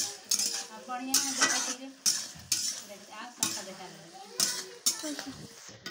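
A metal spatula scraping and knocking against a metal wok as vegetables are stir-fried, in repeated strokes about one or two a second, over the sizzle of frying.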